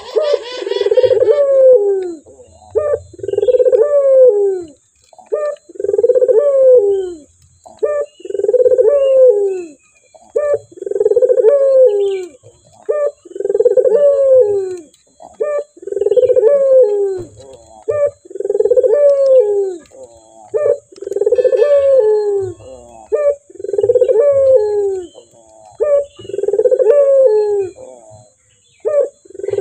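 Male Barbary dove (ringneck dove, Indonesian 'puter') cooing over and over, one coo about every two and a half seconds, each a short note followed by a longer coo.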